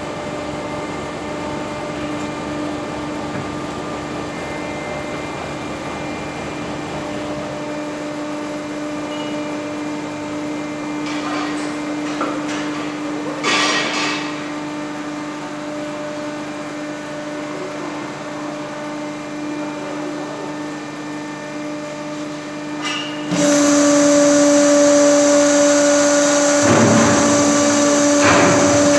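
Suner Makine vertical baling press running, its hydraulic pump and electric motor making a steady hum while the pressing plate moves. There is a brief rattle about halfway through, and the hum turns suddenly louder about 23 seconds in and stays that way.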